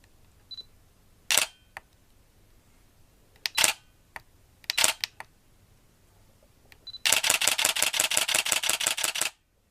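Digital SLR camera shutter releasing: a short beep, then several single shots spaced a second or so apart. After a second beep comes a continuous burst of about ten shots a second for just over two seconds, which stops abruptly.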